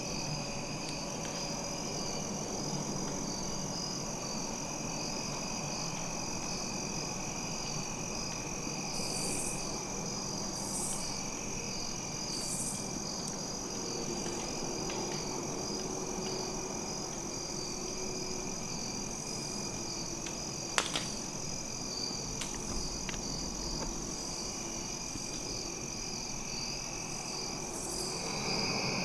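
Evening chorus of crickets and other insects in the woods: several steady high-pitched chirring notes, one of them pulsing quickly. A single sharp click comes about twenty-one seconds in.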